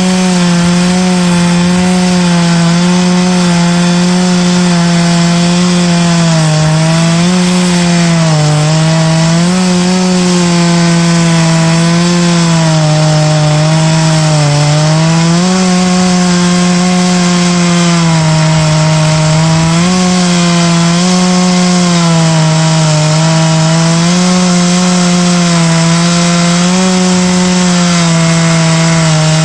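Big-bore two-stroke chainsaw milling oak, running at high revs under load through a long rip cut. The engine note holds steady and sags briefly a few times as the chain loads up in the wood.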